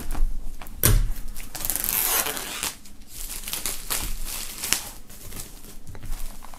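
Plastic shrink wrap crinkling and tearing as it is pulled off a vinyl LP sleeve, with irregular crackles and a longer rustle about two seconds in.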